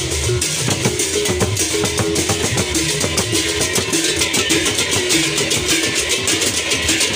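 Sasak procession gamelan played on the march: large gendang beleq drums and clashing hand cymbals keep a fast, dense beat under a melodic line.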